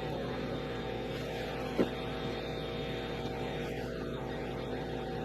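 A machine running steadily with an even hum, and one sharp click a little under two seconds in.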